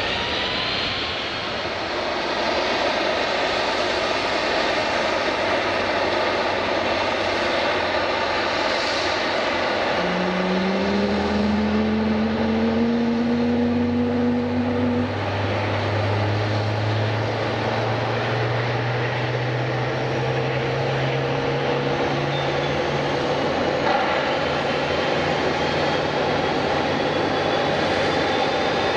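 Airliner engines running loud and steady, with a pitched hum that rises in pitch from about ten seconds in and then holds.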